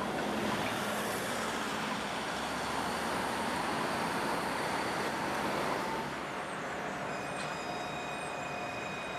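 Tram in motion on the Glenelg tramway: a steady rushing run of wheel and traffic noise, with several steady high-pitched tones joining about two-thirds of the way through.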